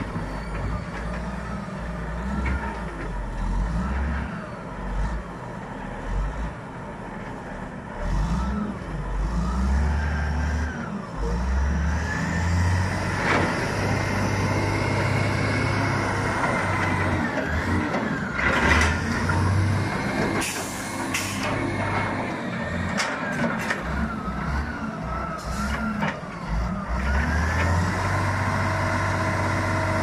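Caterpillar 980C wheel loader's diesel engine working under load, revving up and down so its pitch rises and falls again and again as it pulls and carries a large log. A few sharp knocks and a short hiss come through about midway.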